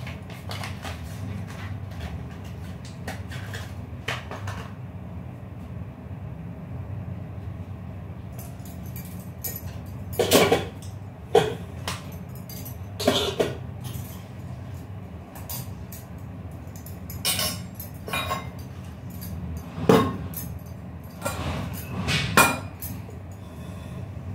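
Stainless-steel kitchen vessels being handled at a sink: a string of sharp knocks and clinks, starting about ten seconds in, over a steady low hum.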